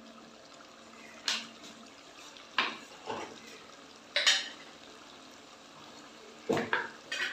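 Metal clanks and clinks against a steel cooking pot: about six sharp knocks spaced irregularly, some in quick pairs, over a faint steady hum.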